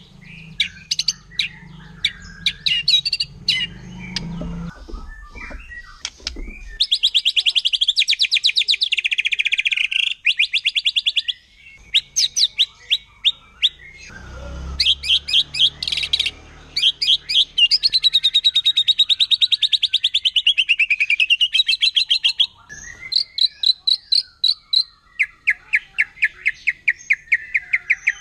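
White-rumped shama singing in long, very rapid trills of sharp repeated notes, the fast 'shooting' (tembakan) phrases, each run lasting a few seconds with short breaks and brief whistled notes between them.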